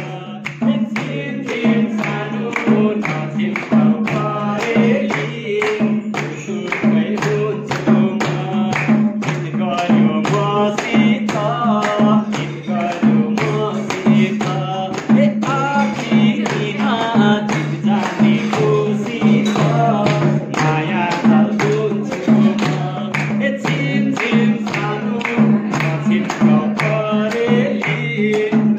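Men singing a Nepali folk song, with hand clapping keeping a steady beat and a low steady hum underneath.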